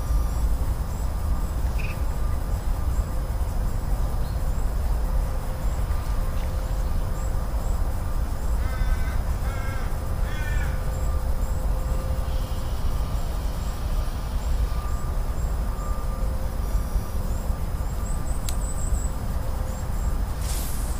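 A crow cawing three times in quick succession about halfway through, over a steady low rumble.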